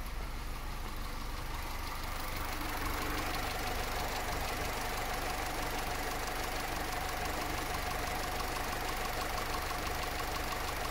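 Opel Combo's four-cylinder petrol engine idling steadily with the bonnet open, at an idle speed that is too low. The engine has a running fault that the owner is chasing.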